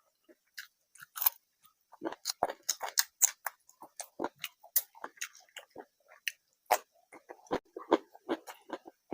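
Close-miked chewing and mouth sounds of a person eating rice and curry: a quick run of short smacks and clicks, sparse at first and then steady from about two seconds in.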